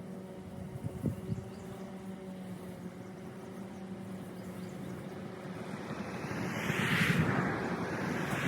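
Lawn mowing equipment running with a steady hum; from about six seconds in a louder rushing noise swells over it.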